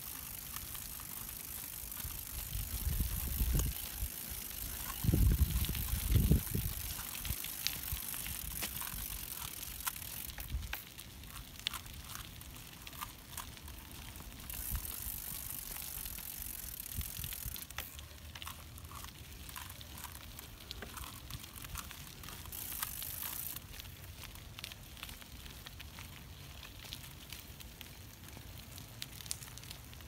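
Small BMX-style bicycle ridden backwards over asphalt: tyres rolling with a steady hiss and scattered light clicks and ticks throughout. Low rumbles a few seconds in are the loudest moments.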